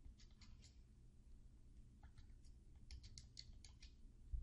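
Faint, irregular clicks of calculator keys being pressed one after another.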